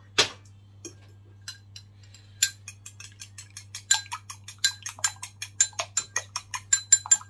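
An egg being beaten for an egg wash with a metal utensil in a small ceramic bowl: a sharp knock just after the start and a few scattered taps, then from about two and a half seconds quick ringing clinks, about five a second.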